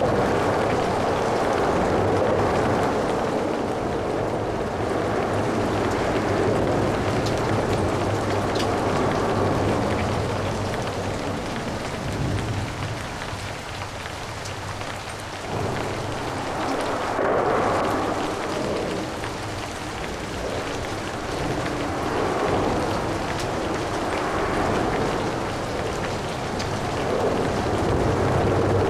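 Steady rain with light city traffic on wet roads: tyre hiss swells and fades every few seconds as vehicles pass, over a low steady hum of distant traffic.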